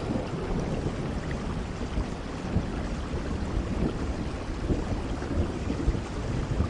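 Steady rain with a low rumble of distant thunder underneath.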